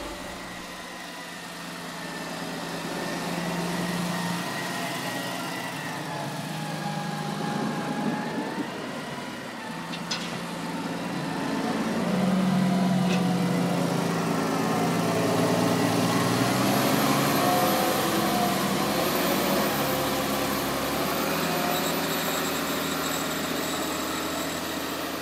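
Farm machinery engines running during maize chopping for silage, their pitch rising and falling with the work. A thin high whine comes in about two-thirds of the way through.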